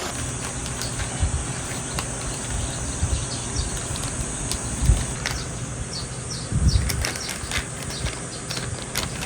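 A cat tunnel hideout being handled while it is set up: scattered rustling and small clicks, with dull thumps about five and about six and a half seconds in, over a steady background hum.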